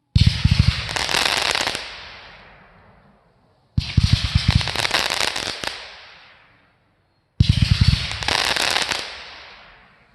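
Fireworks going off in three bursts of rapid crackling pops. Each burst lasts about two seconds and then fades away.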